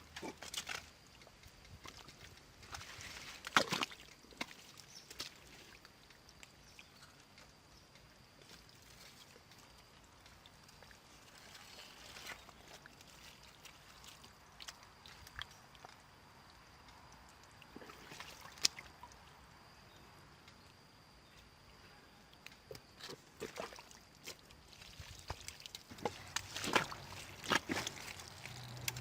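Intermittent sloshing and splashing of water, with a few louder splashes near the start and a cluster of them near the end.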